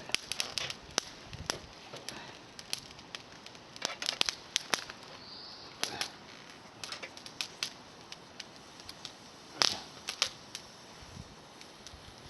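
Campfire of small climbing-rose twigs crackling, with irregular sharp pops and snaps throughout. The loudest pop comes near the end.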